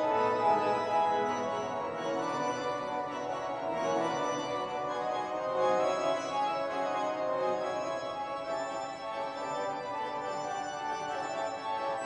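Organ music: slow, sustained chords held and changing gradually.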